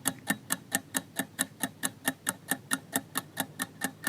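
Clock-tick sound effect ticking steadily at about four ticks a second: a quiz countdown timer running while the question waits for its answer.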